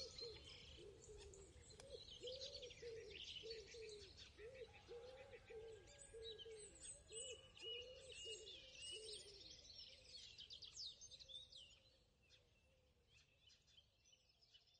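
Near silence with faint birdsong: high chirps and twitters over a run of repeated short, lower calls, dying away about two-thirds of the way through.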